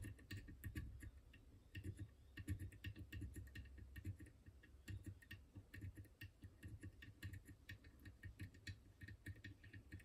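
Faint, irregular little clicks and taps of steel lock picks pushing the pins of a French Izis lock. Each click is a pin being touched and nudged up against its tapered spool while the lock is worked toward shear.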